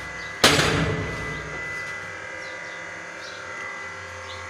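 A single sharp metallic clang from a manual soap-stamping punch press about half a second in, ringing away over about a second. Then the steady hum of running soap-making machinery.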